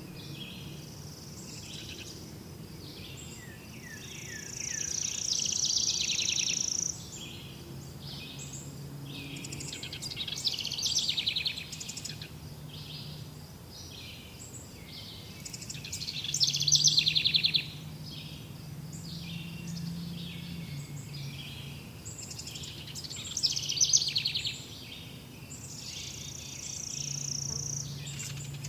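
Several birds singing and chirping outdoors, a mix of quick chirps, trills and a held high whistle, with louder bursts of song now and then. A faint low hum comes and goes underneath.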